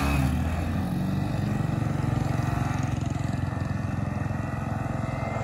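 Two single-cylinder commuter motorcycles, a Bajaj Platina 110 and a Hero HF Deluxe, accelerating hard from a standing start. Their engine pitch rises and falls through the gear changes in the first second, then settles into a steady drone as they pull away.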